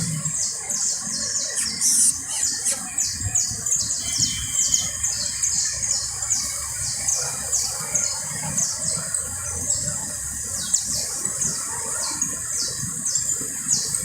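Canary singing a long series of short, high, downward-slurred notes, two or three a second, repeated steadily.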